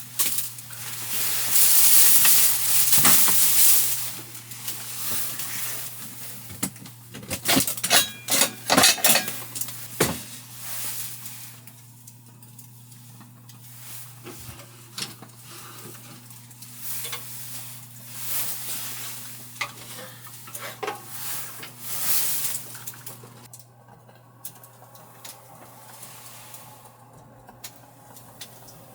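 Cooking sounds: food sizzling in a pan, loudest early on, with utensils clicking and clinking against the pan several times a few seconds in, over a steady low hum.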